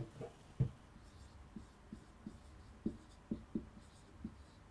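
Marker pen writing on a whiteboard: a quiet run of short, irregular taps and strokes as a word is written out.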